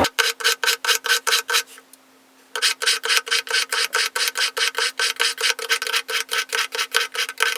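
Kitchen knife blade drawn rapidly back and forth through the coarse number 1 ceramic stone of a water-wetted IKEA knife sharpener, a rasping scrape at about five strokes a second. The strokes stop briefly about two seconds in, then run on steadily.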